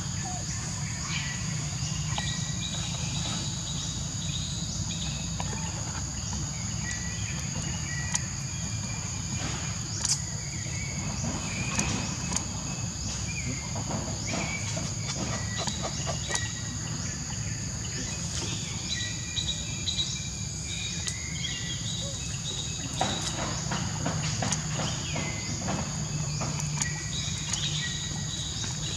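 Steady high-pitched drone of insects, with birds chirping in short repeated calls and a low steady rumble underneath.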